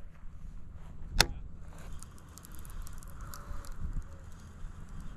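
Baitcasting reel being worked by hand on a retrieve: one sharp click about a second in as the handle is turned, then soft scattered ticking of the reel as line is wound in.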